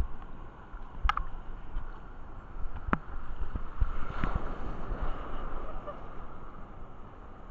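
Shallow sea surf sloshing and splashing around a camera held at the water's surface, with two sharp clicks about one and three seconds in. About four seconds in, the camera dips into the foamy water and the splashing grows louder for a second or so.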